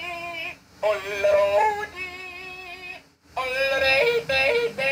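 Electronic Yodelling Pickle novelty toy playing its recorded yodel: a voice leaping up and down in pitch, in short phrases with brief pauses about half a second in and about three seconds in.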